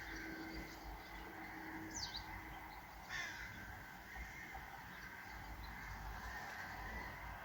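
Faint background noise with a bird calling: a short high chirp about two seconds in, and a longer falling call about three seconds in.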